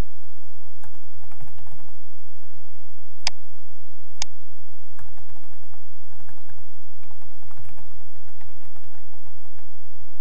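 Typing on a computer keyboard: an irregular run of light key clicks, with two sharper clicks about three and four seconds in, over a steady low hum.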